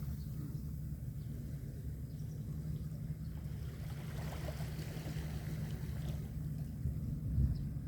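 Sea ambience: a steady low rumble of water and wind, with wind buffeting the microphone and a slight swell near the end.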